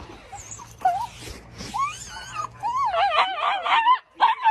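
A dog whining: two short rising whimpers, then a longer warbling whine that wavers up and down in pitch.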